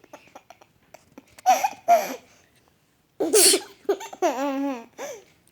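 A baby laughing: two short giggles, then a person sneezes about three and a half seconds in, and the baby answers with a longer, wavering laugh and one more short one near the end.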